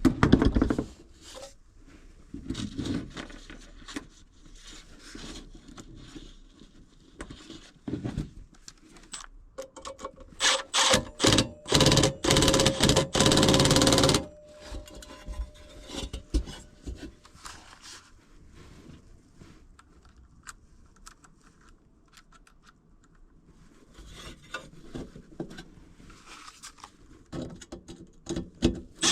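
Cordless drill-driver running in a few short bursts about ten seconds in, then steadily for about two seconds, as screws are driven on a furnace's inducer motor assembly. Clicks, knocks and rubbing of metal parts being handled before and after.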